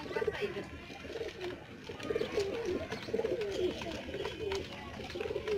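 Domestic pigeons cooing, a continuous run of low, rolling coos rising and falling in pitch.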